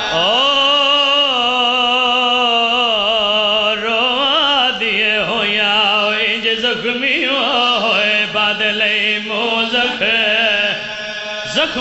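A man's voice singing a Punjabi mourning lament (bain) through a microphone, in long, wavering, melismatic notes that glide up and down, over a steady low held drone. The singing dips briefly near the end, then swells again.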